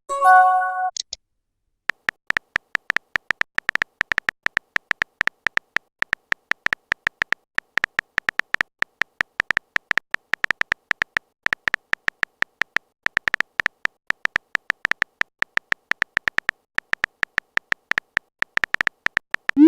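A rising swoop and a short electronic chime at the start, then a long run of quick, irregular clicks, each with a faint beep, typical of a phone-keyboard typing sound effect in a chat video.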